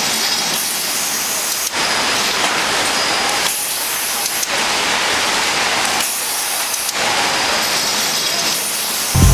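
Loud, steady machinery hiss of a bottle-pack handling line at a bottling plant, where robot arms pick and place packs on the conveyors. The noise shifts in character every second or so.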